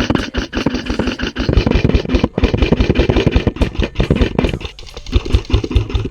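MK18 airsoft electric gun (AEG) firing on full auto: a fast, continuous run of clicking shots over the whir of its motor and gearbox, in long bursts.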